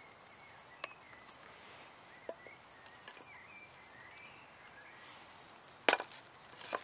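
Fixed-blade outdoor knife working dead wood: mostly quiet, with faint bird chirps and a few small ticks, then a sharp knock of the blade into the log about six seconds in and another right at the end.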